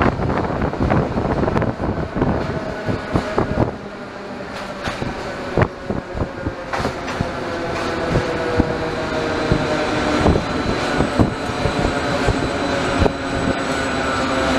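Beovoz electric commuter train heard from on board, running over the rails: wheels clacking irregularly over rail joints and points above a steady rumble, with a faint high tone that slowly falls in pitch. It gets louder from about four seconds in.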